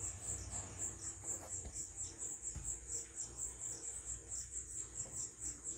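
Insect chirping: a high-pitched pulse repeating evenly about three times a second, over a faint low hum.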